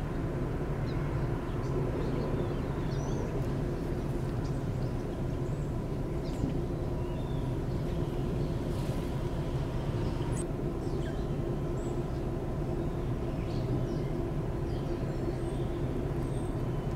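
A steady low mechanical hum with a few fixed tones in it, and faint short high chirps scattered throughout.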